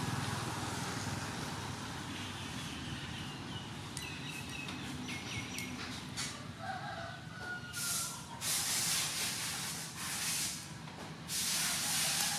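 Steady rush of running stream water, with a few faint chirps a few seconds in. In the second half come several short, crisp rustling bursts as pumpkin leaves, stems and flowers are handled.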